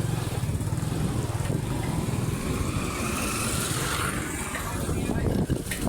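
A motor vehicle's engine running steadily, with street noise that swells for a moment midway.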